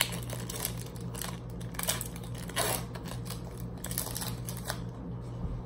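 Foil wrapper of a Pokémon card booster pack being torn open and crinkled, a run of sharp crackly rustles that die away near the end.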